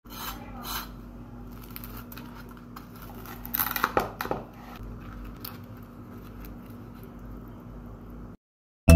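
Knife cutting through a pan-fried spring roll's crisp flour wrapper: scattered crackling and small clicks, loudest about four seconds in, then the sound cuts out just before the end.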